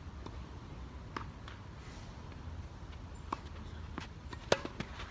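Tennis rally: a handful of sharp pops of the ball off rackets and the court, the loudest a little before the end from the nearest player's racket, with shoe scuffs in between.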